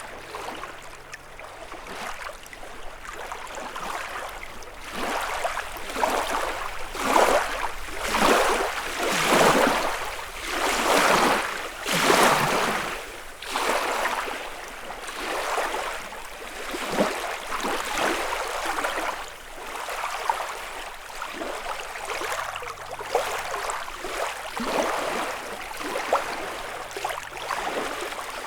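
Small lake waves lapping and washing onto the shore, a swash every second or two, strongest around the middle.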